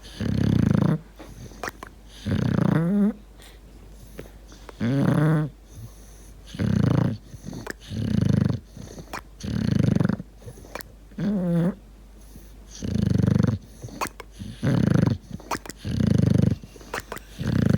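Sleeping bulldog snoring loudly and rhythmically, about one snore every one and a half to two seconds.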